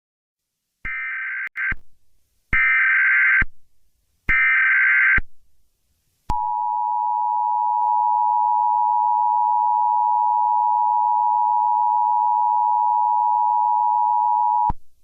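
Emergency Alert System tones: three short bursts of shrill, buzzing SAME header data, followed by the steady two-tone EAS attention signal held for about eight seconds before it cuts off.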